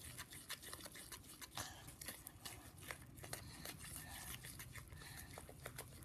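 Spoon stirring thick homemade slime in a small bowl: faint sticky clicks and squelches in quick irregular succession. The slime has nearly set and is pulling clean off the bowl's sides.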